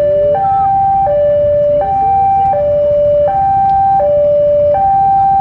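Railway level-crossing warning alarm sounding, a loud two-tone signal alternating between a higher and a lower note about every three-quarters of a second, warning that a train is approaching.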